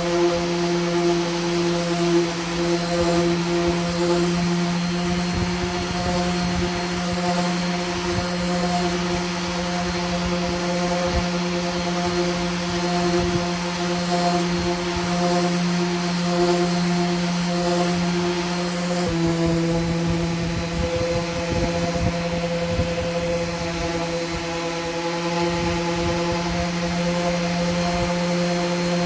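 A power tool's electric motor running steadily with a constant hum. Its pitch shifts slightly about two-thirds of the way through, and there is irregular rough crackle underneath.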